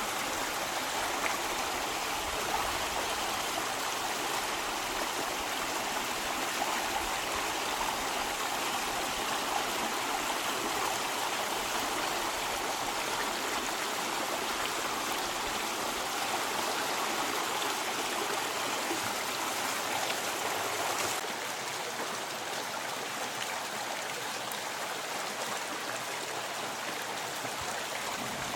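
Mountain stream running steadily, an even rush of water that becomes a little quieter about two-thirds of the way through.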